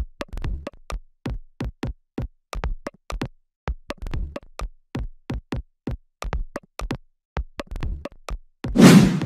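Electronic music with a choppy drum-machine beat, starting suddenly out of silence. A short, loud, noisy swell comes near the end.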